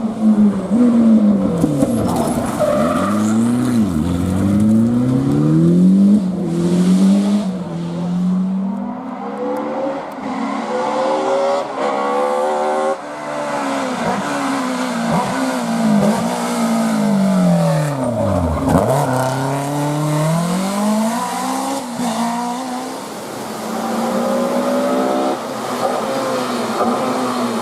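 Historic rally car engines at full attack, revving hard and climbing in pitch through the gears, with the pitch dropping at each shift and lift-off, again and again.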